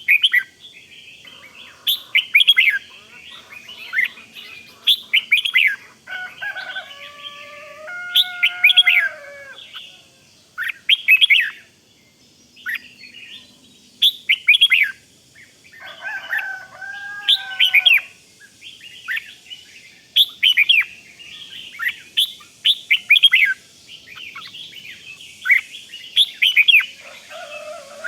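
Red-whiskered bulbuls singing: short, bright chirping phrases repeated every second or two, with a few lower, longer warbling phrases in between.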